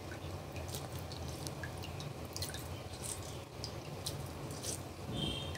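Hands squeezing the water out of a ball of freshly made mozzarella: quiet wet squishing, with water dripping onto the plate below as scattered small ticks. There is a brief squeak near the end.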